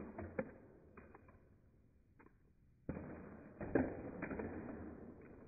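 A few light clicks and knocks from a cardboard model rocket and its fold-out fins being handled, over a faint rush that sets in about three seconds in.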